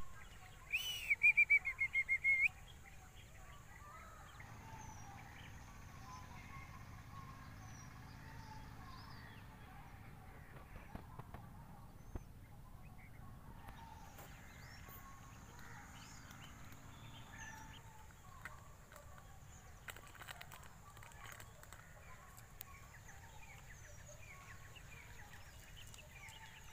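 Birds chirping and calling, with one loud, rapid series of high calls about a second in; after that, scattered small chirps over a quiet background.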